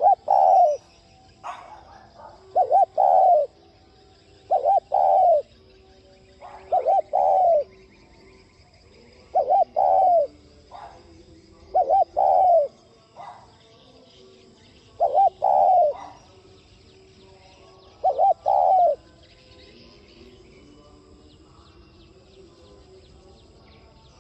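Spotted dove cooing: eight phrases a few seconds apart, each a quick two-note stutter followed by a longer coo. The calling stops about five seconds before the end.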